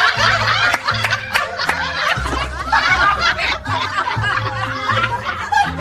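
Several people laughing and snickering over background music with a bass line stepping between notes.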